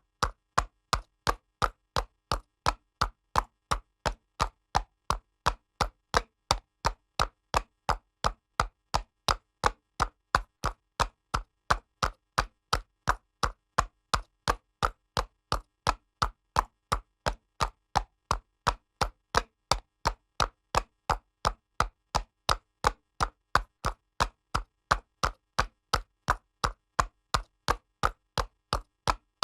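Horse's hooves trotting on pavement: a steady clip-clop of sharp, evenly spaced hoof strikes, about three a second, in a very regular beat.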